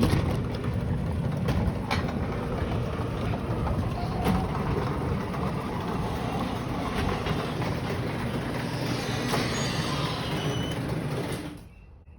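Garage door opener running as the door travels, a steady mechanical rumble with a few faint clicks from the door, stopping about eleven and a half seconds in.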